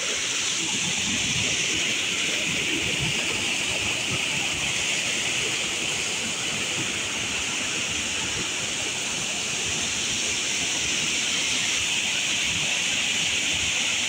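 Water rushing steadily down a small waterfall of white water pouring over a concrete-edged drop, a continuous even roar of falling water.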